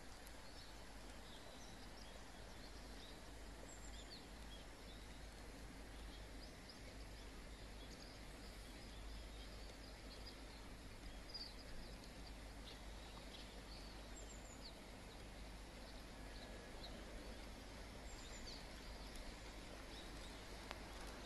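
Faint outdoor ambience with scattered short, high bird chirps over a low, steady rumble.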